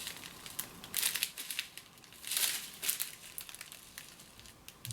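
Small plastic packets of diamond-painting drills being handled, crinkling in several short bursts, the biggest about a second in and again about two and a half seconds in.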